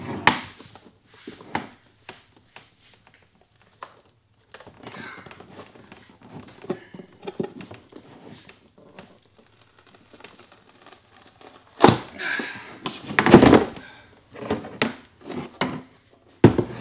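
The black plastic case of a LiFePO4 battery being worked up and off its cell pack, with rustling and scraping of plastic and foam and a few loud knocks in the last five seconds as the case comes free.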